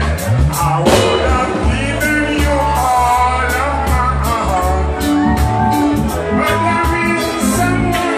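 Live band playing: a man singing into a microphone over electric bass, electric guitar and a steady beat, with the bass heavy.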